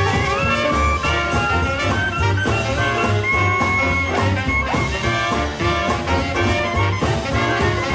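Swing-style jazz music with brass instruments over a steady beat.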